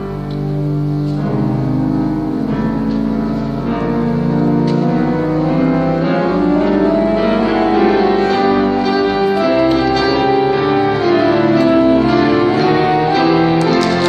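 Piano and organ playing a medley together, entering suddenly with full held chords.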